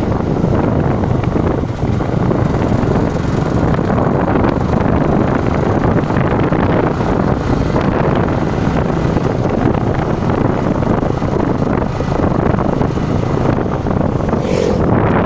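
Wind rushing over the microphone of a motorcycle on the move, a steady noisy roar with road and engine noise underneath. A short higher-pitched sound cuts in near the end.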